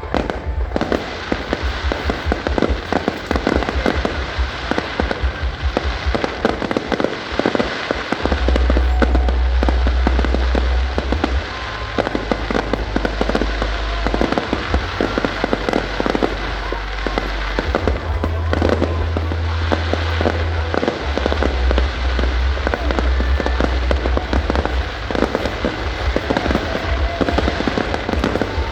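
Fireworks display going off without a break: a rapid, dense stream of bangs and crackles from bursting shells, with heavy low rumbling.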